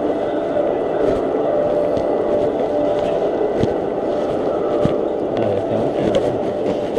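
Airport terminal concourse ambience while walking: a steady rumbling hum with a faint steady tone and scattered clicks and taps.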